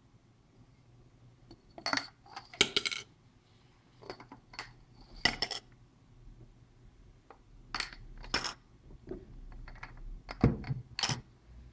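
D-cell batteries clinking against each other and against the Fenix TK70 flashlight's metal battery tube as they are handled and loaded: about nine separate sharp metallic clicks and clinks, a few with a brief ring.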